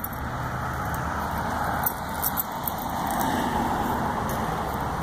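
Steady rushing noise like a passing car, swelling a little around the middle, with light metallic jingling clicks.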